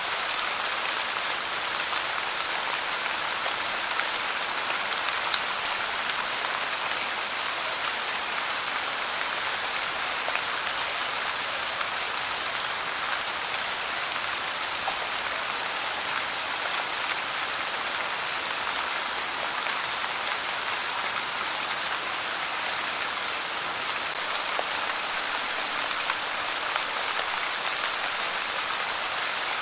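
Light rain falling steadily, a dense patter of small drops that keeps on without letup.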